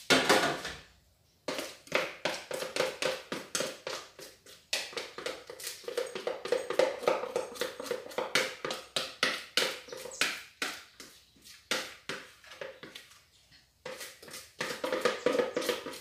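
A spatula scraping cake batter out of a mixing bowl into a baking pan in quick, repeated strokes, about four a second, with short pauses. A single knock comes right at the start.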